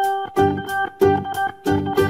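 Background music: pitched notes struck in a quick, even rhythm, about three a second.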